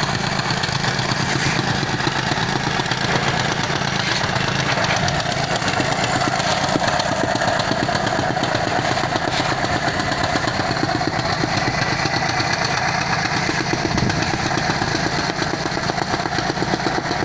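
Small engine running steadily, with a fast, even pulsing throughout.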